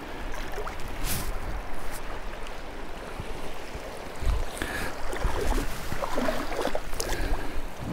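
Fast-running river at high water, rushing and sloshing around someone wading across the current. A brief sharp knock sounds about a second in.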